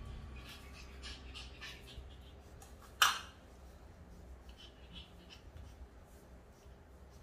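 A puppy gives one short, sharp yip about three seconds in, with faint scuffling of paws on a shaggy rug before and after it.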